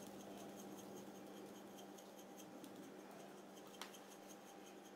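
Near silence: faint room tone with a steady low hum, and a single faint tick almost four seconds in.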